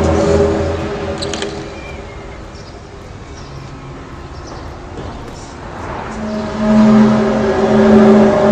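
A low, droning, horn-like tone of the kind reported as 'trumpet sounds in the sky'. It fades off over the first couple of seconds and swells back loud about six seconds in.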